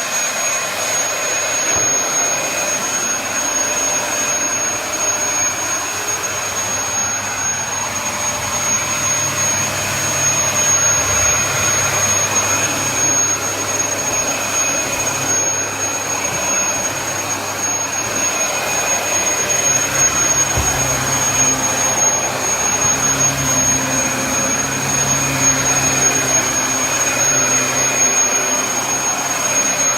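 Dyson DC33 upright vacuum cleaner running steadily: a constant high motor whine over the rush of airflow, with a low drone that wavers a little.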